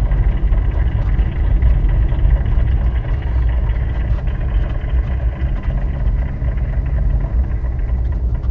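Off-road vehicle's engine running as it drives, a steady low rumble.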